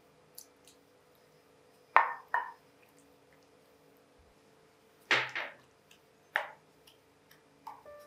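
Wooden spoon and glass bowls knocking and scraping while cooked pumpkin is mashed: two sharp knocks about two seconds in, a louder cluster about five seconds in, another knock just after six seconds, with faint clicks between.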